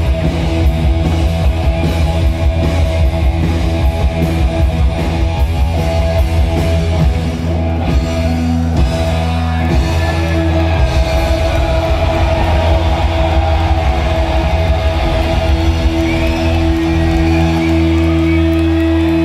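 Live punk rock band, electric guitar, bass guitar and drums, playing loudly with no vocals. Near the end the drums drop away and a single held note rings on steadily.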